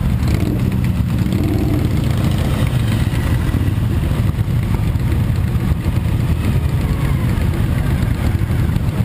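Many motorcycle engines running together as a large group of motorcycles rides slowly past at low speed, a steady mix of idling and light throttle.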